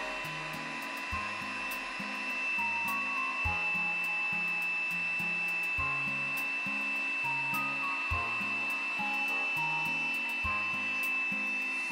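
Small handheld air pump running on AA batteries, blowing steadily with a constant high whine as it inflates an air mattress, over background music.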